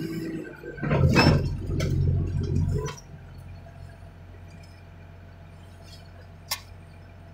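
Heavy equipment running hard with knocks of metal, then dropping suddenly after about three seconds to a steady low engine hum. One sharp click comes near the end.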